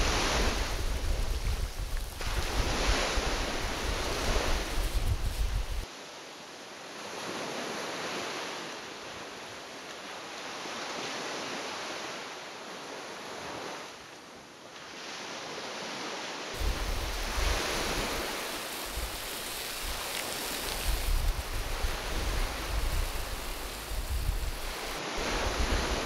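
Sea waves washing on a rocky shore, a steady hiss that swells and fades every few seconds. Wind buffets the microphone with a low rumble, which drops out for about ten seconds in the middle.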